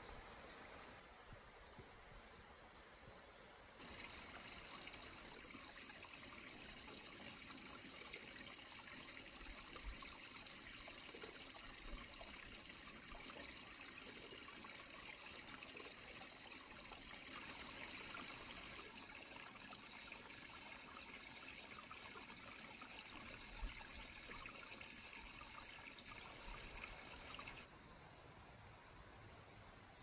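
Faint trickling of a mountain stream under the steady chirring of crickets and other grass insects. The mix shifts a few times, with two small clicks.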